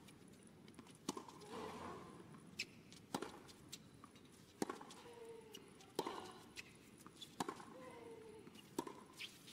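Baseline tennis rally on a hard court: sharp racket strikes on the ball about every 1.4 seconds, with softer ball bounces between them. Players give short grunts on several shots.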